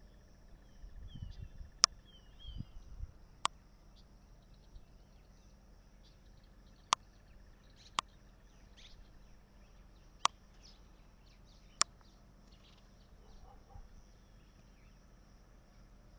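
Quiet countryside ambience with faint bird chirps, broken by six sharp clicks spaced one to three seconds apart, and a brief low rumble in the first three seconds.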